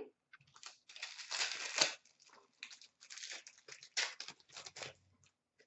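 Trading cards and their packaging handled and sorted by hand: a run of rustling, crinkling noises, loudest about a second in and again around four seconds in.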